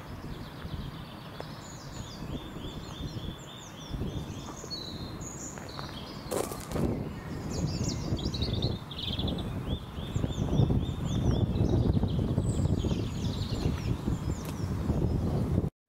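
Birds singing, with many short high chirps and repeated trills throughout. A low rumbling noise grows louder in the second half, and there is one sharp click about six and a half seconds in.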